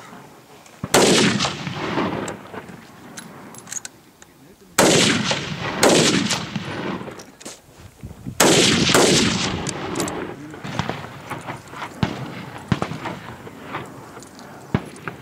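Hunting rifles firing on a shooting range: three loud shots about 1, 5 and 8.5 seconds in, each trailing off into an echo, with further shots close after the second and third and fainter cracks between.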